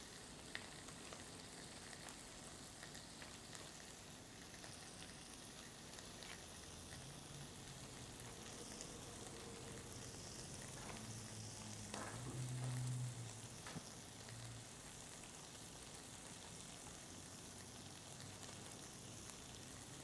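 Faint, steady sizzle of calamari rings and shrimp frying in a pan, with a few soft ticks as lettuce leaves are handled on a wooden board. A brief low hum comes about twelve seconds in.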